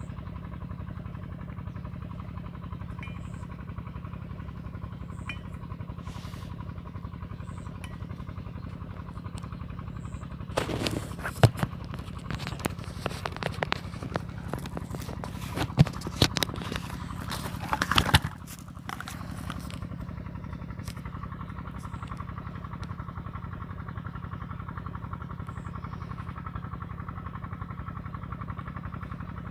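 Handling noise: a run of sharp knocks and rattles lasting about eight seconds in the middle, the loudest three standing out, as the phone camera is taken off the rifle scope. A steady low hum runs underneath throughout.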